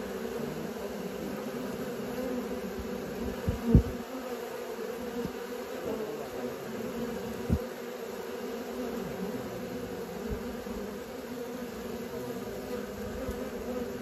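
A crowd of honeybees buzzing and flying at a hive entrance: a steady, many-voiced hum. Two short low thumps break it, about four and seven and a half seconds in.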